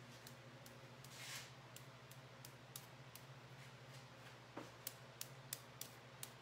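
Near silence with faint, evenly spaced light clicks, about three a second, a little louder over the last two seconds.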